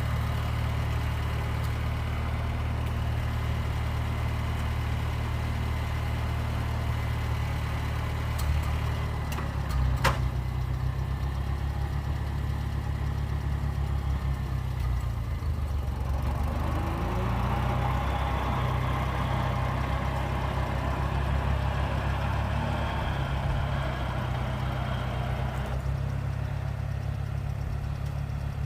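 1977 Ford F-150 pickup engine idling steadily, with a sharp click about ten seconds in. From about sixteen seconds, a higher-pitched running noise with a short rising whine joins the idle, then stops about ten seconds later.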